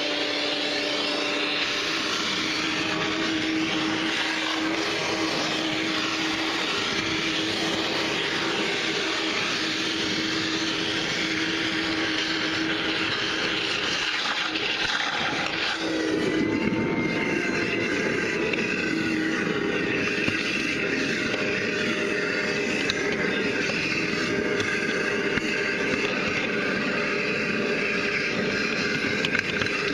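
Rainbow water-filtration vacuum cleaner running steadily while sucking standing water and debris out of a clogged sink drain. About halfway through, its steady hum drops away and the sound turns rougher and a little louder.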